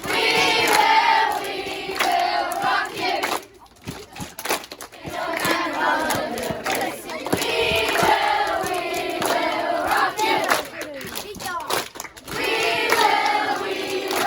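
A group of children's voices shouting or chanting together in loud phrases, with brief breaks about four seconds in and near the end.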